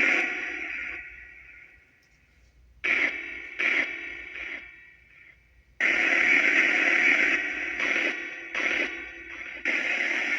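Necrophonic spirit box app playing white noise through echo and reverb: static-like radio noise that comes and goes in bursts. The first burst fades out over about two seconds, a few short bursts follow, and after a gap a long stretch starts about six seconds in.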